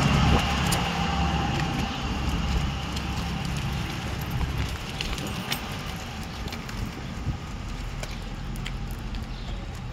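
A motor vehicle's engine running, a steady low rumble that fades over the first few seconds, with light clinks and taps from the dog's leash and harness hardware.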